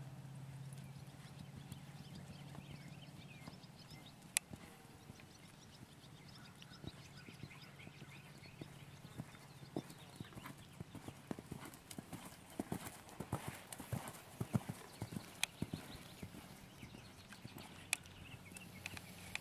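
Hoofbeats of a ridden buckskin gelding moving on a sand arena, a run of short knocks that grows louder and denser about two-thirds of the way through as the horse comes close, then thins out again. A few sharp clicks stand out among them.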